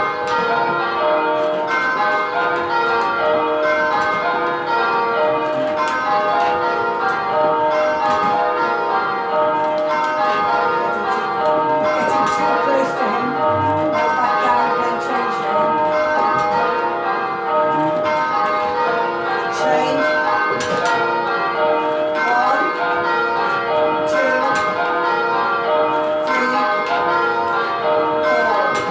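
Tower bells being rung in continuous, evenly spaced rows of change ringing, practising Kaleidoscope ringing (dynamic pairs): pairs of bells hold long places of four blows and then swap at handstroke.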